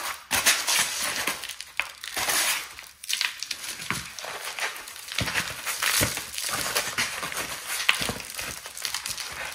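Crinkling and crackling of something being handled, with scattered small clicks and a few sharper knocks.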